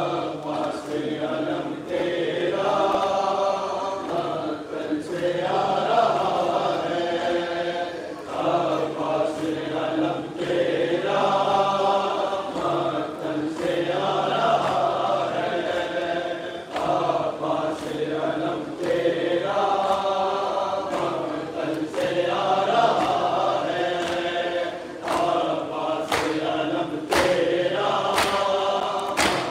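A large crowd of men chanting a mourning noha in unison, phrase after phrase with short breaths between. Sharp slaps of chest-beating (matam) keep time, most distinct near the end.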